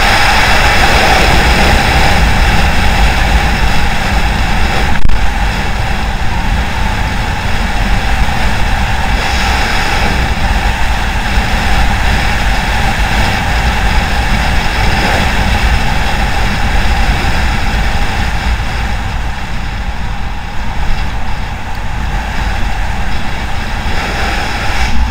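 Wind buffeting a motorcycle-mounted camera at road speed, with the bike's engine running steadily underneath. A single sharp knock about five seconds in.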